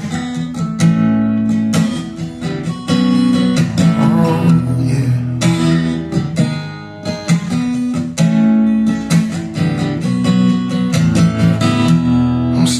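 Recorded music: an acoustic guitar strumming chords in a song's instrumental intro, played back over a hi-fi amplifier system.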